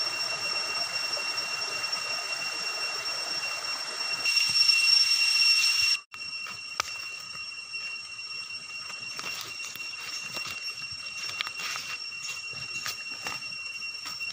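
Stream water running over rocks with a steady high-pitched whine, louder for a moment about four seconds in. After an abrupt break, footsteps crackling through dry leaves and brushing undergrowth, the high whine still going.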